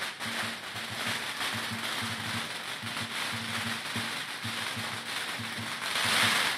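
Lion dance percussion: a big drum beating a fast rhythm under constantly clashing cymbals, growing louder near the end.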